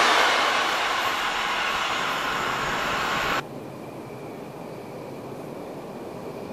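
A passenger train of coaches moving away, its rail noise slowly fading. About three and a half seconds in it cuts off abruptly to a much quieter steady background hum with a faint thin high whine.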